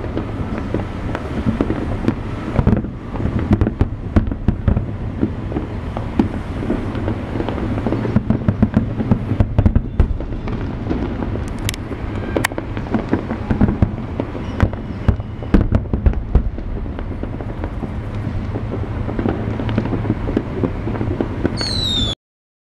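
New Year's fireworks going off continuously: aerial shells bursting and crackling in a steady low rumble, with frequent sharp louder cracks. Near the end comes a brief high whistle, then the sound cuts off suddenly.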